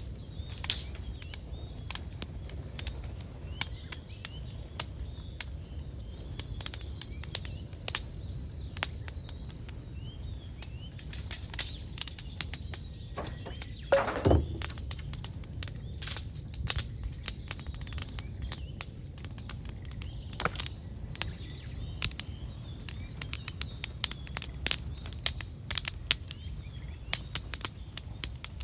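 Bonfire of garden debris crackling and popping, with a steady low rumble underneath and one louder pop or thump about halfway through. Small birds chirp now and then.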